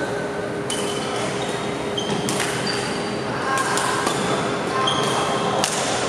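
Badminton rally in an echoing hall: racket strings strike the shuttlecock in several sharp cracks about a second or more apart, with short squeaks of court shoes on the wooden floor between them. A steady faint hum runs underneath.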